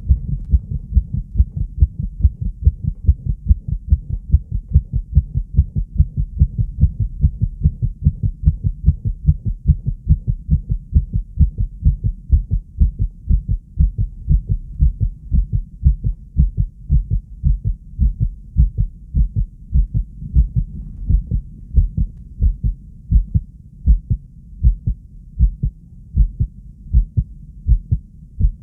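A heart beating fast: a steady run of short, low, muffled thuds repeating several times a second.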